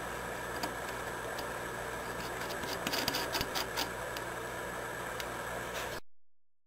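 Small metallic clicks and rattles of a steel hex nut being spun by hand onto a freshly cut thread, bunched about three seconds in, over a steady machine hum. The sound cuts off abruptly about a second before the end.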